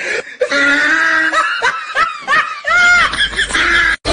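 Laughter: a run of high-pitched giggles and chuckles, broken off by a brief gap near the end.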